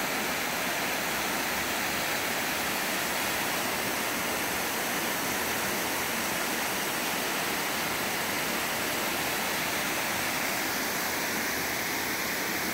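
Water spilling over a concrete weir into a pool: a steady, even rush of falling water.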